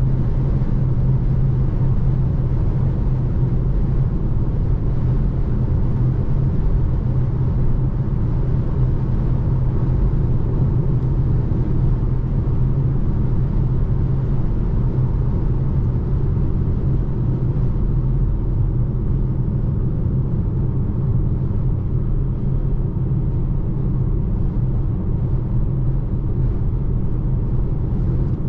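Steady low rumble of road and tyre noise heard inside the cabin of a Volvo C40 Recharge pure electric car while driving, with a constant low hum and no combustion engine note.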